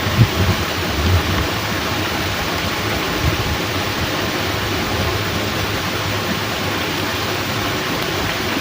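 Steady rushing water from a fishpond sluice gate mixed with heavy rain, an even hiss with a few low thumps in the first second or so.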